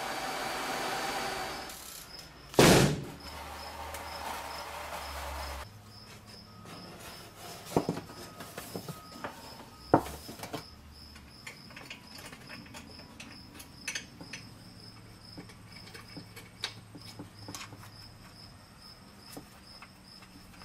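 The 1999 Mercedes-Benz SL500's V8 engine runs briefly and is switched off about two seconds in. Soon after comes one loud bang as the car door shuts. Then it goes quiet, with a faint steady high chirping and a few knocks and clicks as the plastic engine undertray is handled.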